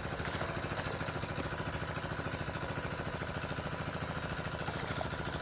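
A small engine running steadily at idle, with a rapid, even pulse.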